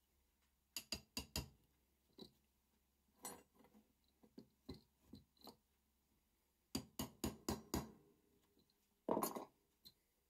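Light hammer taps on a steel pin punch, driving a pin out of an old breast drill: a quick run of four metallic clinks about a second in, scattered lighter taps, then another quick run of five about seven seconds in. A louder clatter near the end.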